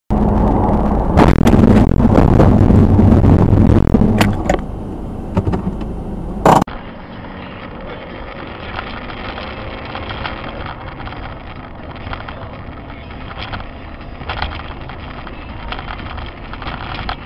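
Car road noise heard through a dash camera: loud driving noise with a few knocks, ending in a sharp bang about six and a half seconds in. Then quieter, duller steady road noise with occasional light clicks.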